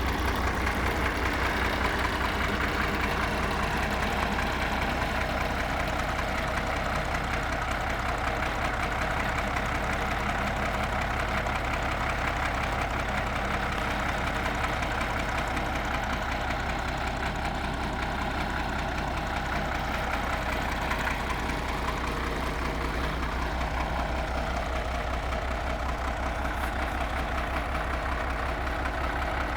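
Large engine idling steadily with an even, fast pulsing beat.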